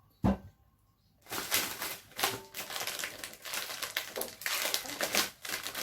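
A single thump, then from about a second in a continuous crackling and rustling of a plastic snack packet being handled.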